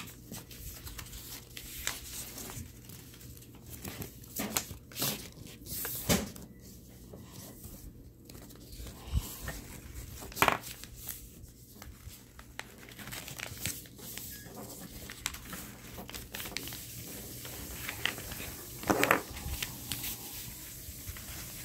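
A sheet of white paper being folded by hand and its crease pressed flat against a tabletop: intermittent rustling and crinkling, with a few short, sharper sounds spread through.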